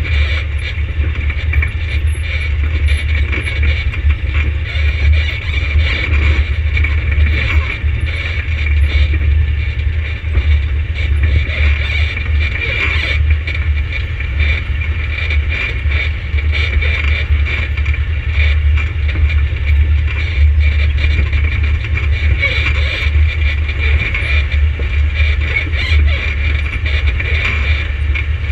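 ATV engine running steadily, a constant low rumble.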